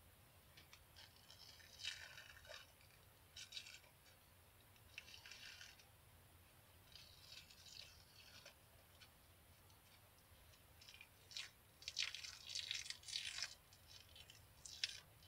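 Peel-off face mask film being pulled off the skin: faint, scattered crackles and soft tearing rustles, coming thicker near the end.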